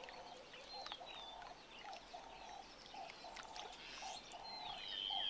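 Faint natural wetland ambience: birds chirping, with one clear whistled call near the end, over a repeated short buzzy animal call about twice a second.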